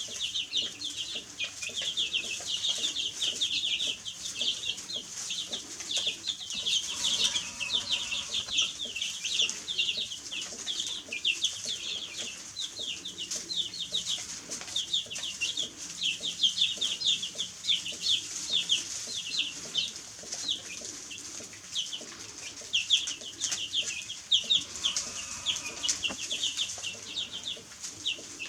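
A group of baby chicks peeping without a break: a dense stream of short, high chirps overlapping one another.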